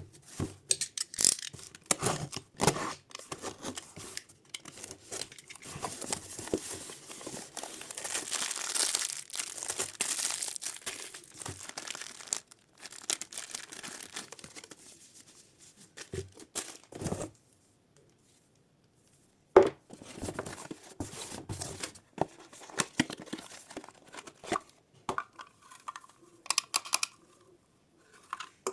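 Packaging being torn open and crinkled by hand, with irregular rustling and sharp clicks. It stops briefly a little past the middle, then resumes with a sharp click.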